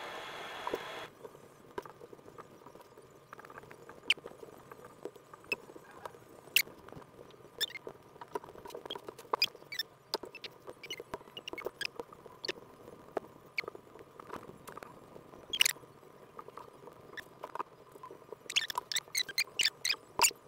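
Crochet hook and yarn being worked by hand at close range: scattered light clicks and small squeaks, with a quick run of clicks near the end.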